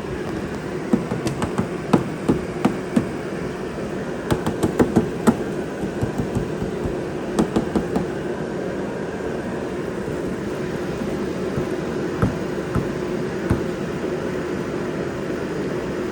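Irregular clicks and knocks of hand tools and hardware on motorcycle saddlebag parts, coming in short clusters over a steady background hum.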